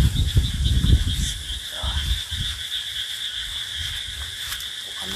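Night chorus of calling frogs and insects, a steady high trill. Low thumps and rumble, likely footsteps and handling, are heard in the first couple of seconds and then fade.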